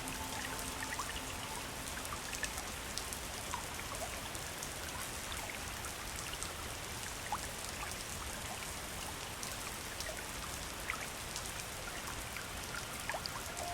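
River water flowing: a steady rush of moving water with many small splashes and droplet plinks scattered through it.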